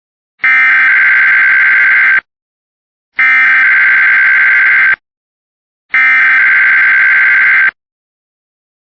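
Emergency Alert System SAME digital data bursts: the raspy two-tone modem screech, sent three times, each burst just under two seconds long with about a second of silence between.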